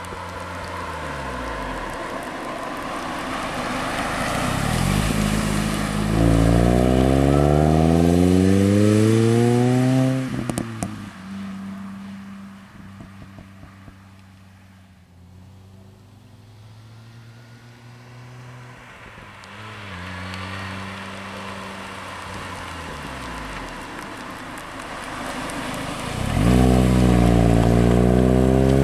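Supercharged 1.6-litre four-cylinder of a 2006 Mini Cooper S (R53) with a sport exhaust, driven past under hard acceleration twice, its revs climbing steadily each time. The first run ends about ten seconds in with a few exhaust crackles as the throttle closes, and the engine is faint and distant in between.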